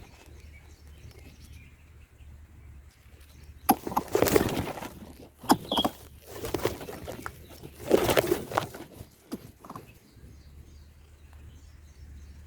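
Three bursts of rustling foliage and flapping, at about four, five and a half, and eight seconds in, as a bird moves about at a nest in a bush. A short, high chirp comes just before six seconds.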